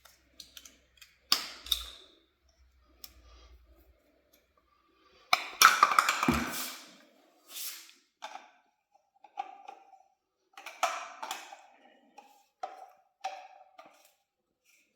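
Teflon tape and plastic pipe fittings being handled as the tape is wrapped onto the threads: scattered clicks and rustles, with a louder scraping burst lasting about a second and a half, about five seconds in.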